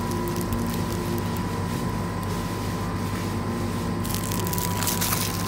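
Steady low electrical hum of shop refrigeration units, with a thin constant whine above it. A brief rustling hiss comes about four seconds in.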